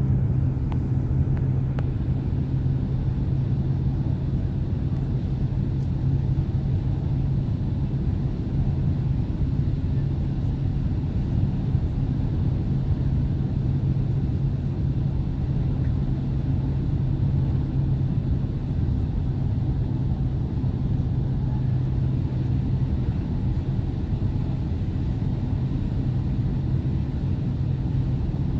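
Steady cabin drone of a Boeing 767-300ER airliner on approach: engine and airflow noise as a constant low rumble with a steady hum underneath.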